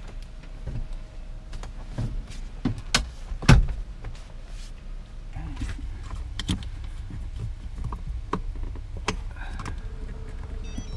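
Scattered clicks and knocks of hand work in a van cab, one louder knock about three and a half seconds in: the swivel seat being handled, then a socket wrench on the chassis battery cable terminal.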